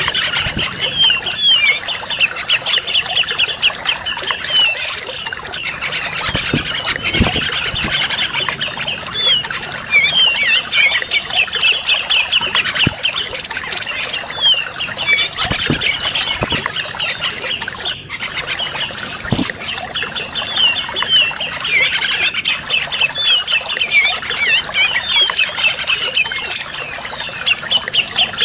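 Lure recording of a grey-cheeked bulbul (cucak jenggot) calling: rapid, harsh chattering trills in phrase after phrase with short gaps, over a steady hiss.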